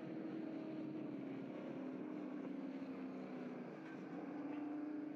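A pack of V8 muscle race cars running past together, their engines blending into one steady drone. The pitch falls slightly, dips about four seconds in, then rises again near the end.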